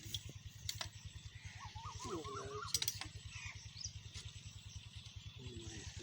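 16 HP single-cylinder diesel engine running steadily, its low beat faint and even. A short warbling call comes in about two seconds in.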